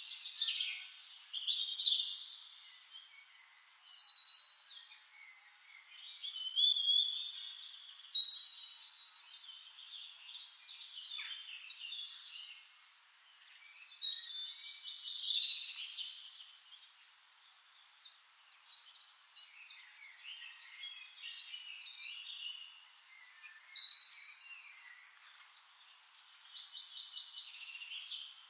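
Wild birds singing in a dense chorus of overlapping trills, chirps and short whistles, with louder song phrases every few seconds.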